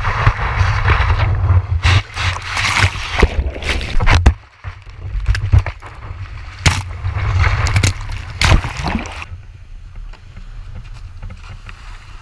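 Skimboard sliding fast through shallow water and wet sand, heard from a camera mounted on the board: a rumble with splashing spray and sharp knocks. After about nine seconds the board comes to rest and the sound drops to a quieter hiss.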